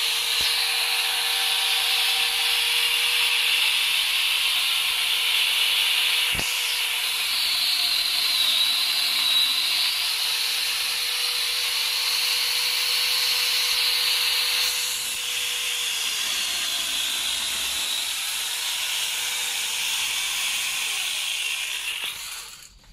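A 4-inch angle grinder fitted with a chainsaw bar and chain, running at full speed and sawing into a young tree trunk. The motor's pitch dips now and then as the cut loads it, and the tool stops abruptly near the end.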